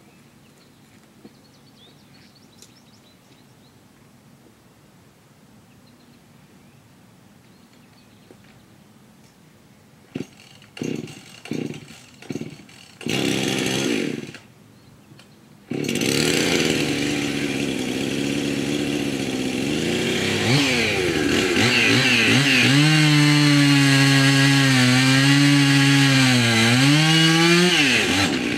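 Husqvarna two-stroke chainsaw being started after a quiet stretch: several short pull-cord tugs about ten seconds in, a brief catch that dies, then it starts and keeps running. About twenty seconds in it is revved up and cuts into a fallen tree, the engine note sagging and wavering under the load.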